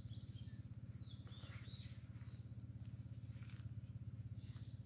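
A few faint, short bird chirps over a steady low hum with a fast, even pulse.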